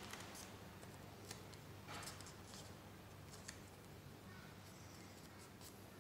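Faint paper handling: scattered soft rustles and small clicks of paper being folded and creased, with one slightly longer swish about two seconds in, over a steady low hum.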